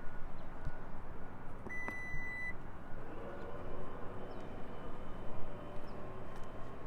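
Steady outdoor background rumble with a single high electronic beep lasting just under a second, about two seconds in, starting with a sharp click.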